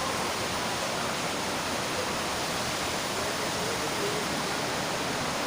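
Heavy rain pouring down in a storm, a steady, even rush of noise.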